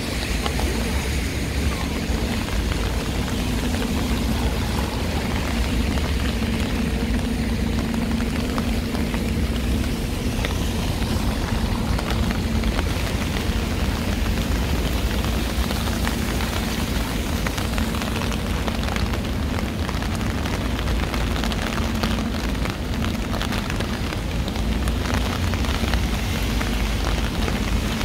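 Heavy rain falling steadily on a city street, with a steady low hum and rumble underneath.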